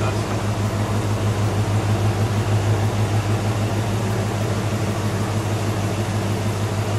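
Power convertible top of a 1960 Dodge Dart Phoenix lowering: its electric top motor runs with a steady low hum while the top folds down.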